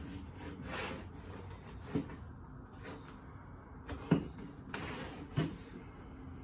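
Knife cutting through thick leather on a tabletop: a run of soft scraping strokes, about one a second, with a few short sharp knocks, the loudest about four seconds in.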